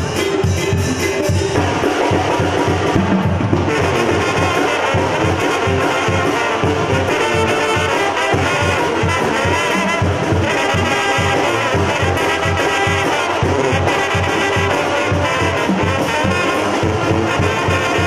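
A live Mexican banda playing: trumpets and trombones carry the melody over a sousaphone bass line and drums keeping a steady beat.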